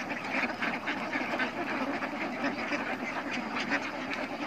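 A large flock of domestic ducks quacking together: a dense, steady chorus of many overlapping calls.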